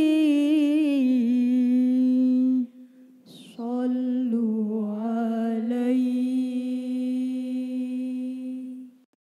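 Girls' voices singing a cappella in Arabic, holding the long drawn-out closing notes of a sholawat. The first note wavers, then settles. It breaks off briefly about three seconds in, and a second long note dips in pitch and rises back before it stops just before the end.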